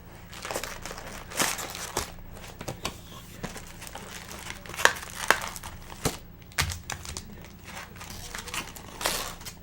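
Wrapping of trading-card packs crinkling and tearing as the packs are opened, in irregular crackles and rustles with several sharper snaps.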